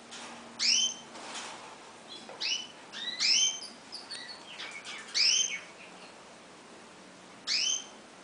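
Bananaquit calling: five loud, short chirps a second or two apart, each rising and falling in pitch, with softer chirps between them.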